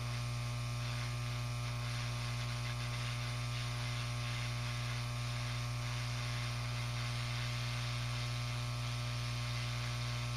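Bakon BK701D hot air rework gun blowing, its blower fan giving a steady hum with an airy hiss.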